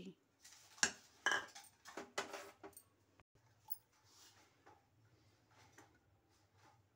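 A few clinks and knocks of dishes and bowls being handled on a kitchen counter, then a faint low hum.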